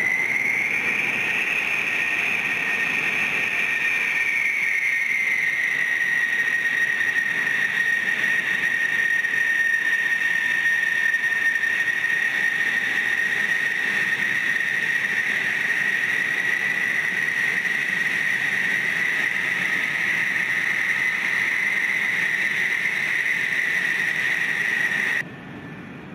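F-16 fighter jets' turbofan engines whining at taxi power: a steady high-pitched whine over a rushing hiss, which rises briefly in pitch and settles back in the first few seconds. The sound drops off sharply near the end.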